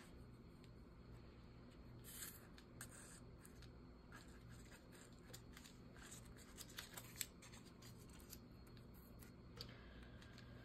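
Faint rustling and light scattered clicks of paper being handled, positioned and pressed down by hand onto a paper collage.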